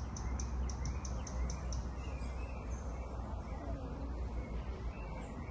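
Birds chirping outdoors: a quick series of short, high chirps, about five a second, for the first two seconds, then softer, lower calls. Under them runs a steady low rumble.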